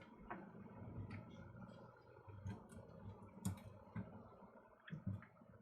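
Faint, scattered small clicks and taps from hands working a Sony CCD-TRV16 8mm camcorder's tape compartment and cassette, the loudest about three and a half seconds in and a quick pair near the end.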